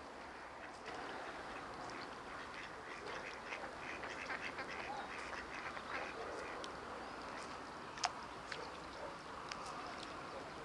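Repeated quacking animal calls, densest in the middle, with a single sharp click about eight seconds in.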